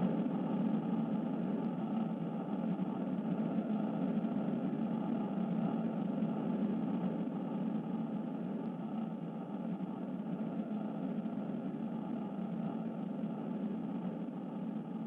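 A steady, even rumbling drone with no distinct pitch, easing slightly quieter toward the end.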